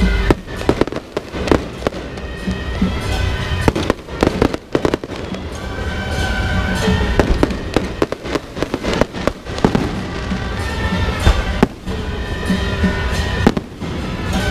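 Fireworks going off in an irregular series of sharp bangs and pops, some close together, over music.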